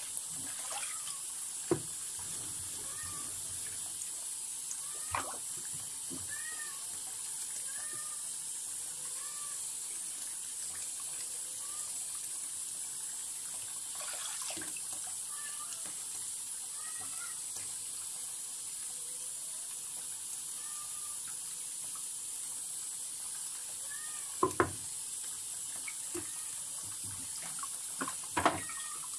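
Tap water running steadily into a sharpening sink, with a few sharp knocks as wet whetstones are handled and set down, the loudest near the end.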